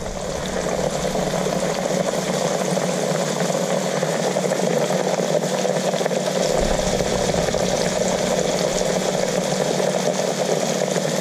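Breaded fish fillets deep-frying in a pan of hot oil, the oil sizzling and bubbling steadily with a dense crackle.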